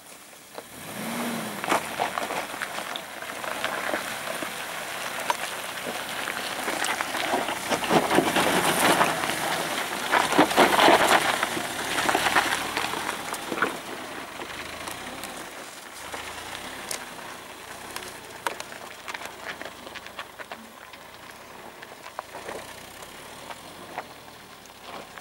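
Suzuki Jimny driving over a rocky dirt track, its engine running and tyres crunching and crackling over gravel and loose stones. It grows louder as it passes close, about ten to twelve seconds in, then fades as it climbs away.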